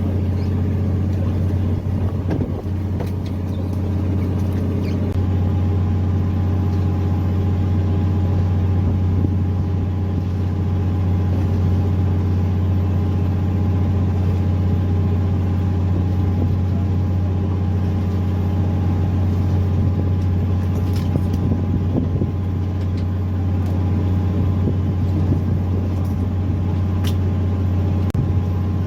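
A fishing boat's engine running steadily: a constant low drone with a few faint clicks in the second half.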